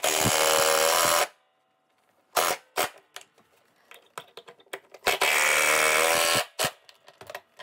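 Makita cordless impact driver driving wood screws through a plywood bracket into a wooden desk, in two runs of just over a second each, with a few light clicks between them.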